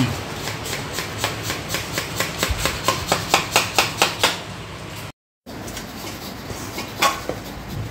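Kitchen knife chopping on a steel plate in quick regular strokes, about four or five a second, growing louder and faster before stopping a little past halfway.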